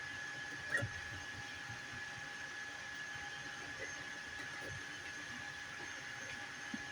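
FDM 3D printer running: a steady whine over fan hiss, with a single click about a second in.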